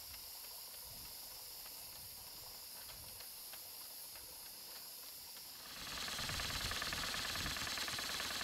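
Stuart Models steam beam engine running slowly, with a soft steam hiss and faint regular exhaust beats. About six seconds in it picks up speed, and the hiss gets louder with a fast, even beat running through it.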